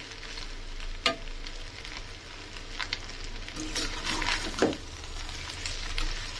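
Macaroni with scrambled egg and onion stir-fried in a steel pan: a slotted steel spoon scraping and clinking against the pan now and then over a steady light sizzle.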